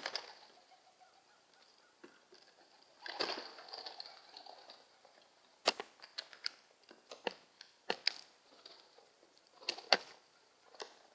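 Pigeons and a crow moving about: irregular sharp taps and clicks, bunched together in places, with a brief rustling burst about three seconds in.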